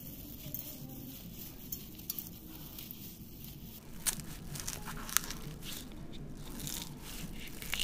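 Small knife slitting fresh red chillies and scraping out the seeds: faint crisp cutting and scraping, with a run of sharper clicks from about four seconds in.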